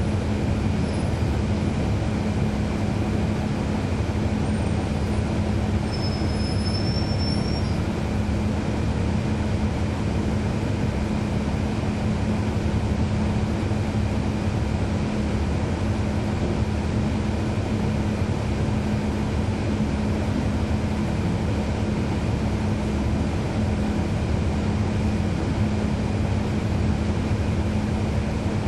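Inside the cabin of a 2012 NABI 40-SFW transit bus, its Cummins ISL9 diesel engine runs with a steady drone and an even hum that does not change in pitch, along with a general vehicle rumble. A faint, brief high squeal comes about six seconds in.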